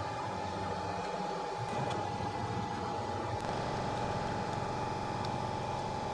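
A steady fan-like hiss with a constant high whine from soldering bench equipment running during desoldering, with a few faint clicks.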